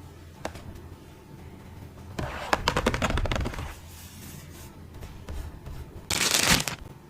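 Plastic packaging crackling and rustling as it is handled: a burst of crackles about two seconds in, and a short, louder rustle near the end.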